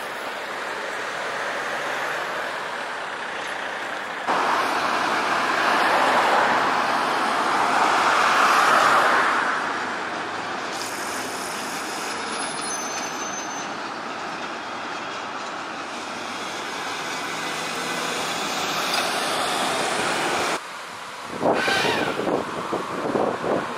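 A tram running along a city street over road traffic noise. Near the end comes a quick run of clattering knocks, typical of tram wheels on rail joints or crossings.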